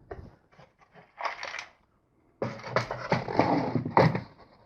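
A wooden toolbox being handled, with a few small knocks and clicks, then a short scrape about a second in. From about halfway there is a longer stretch of wood scraping and knocking.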